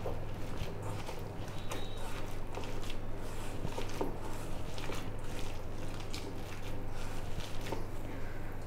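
A hand kneading a wet mix of fish roe, chopped onion, spices and gram flour in a steel bowl: soft squishing with irregular light taps against the bowl, over a steady low hum.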